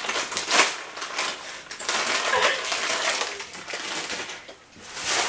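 Crisps crunching, with the scratchy rustle of snack eating close to the microphone.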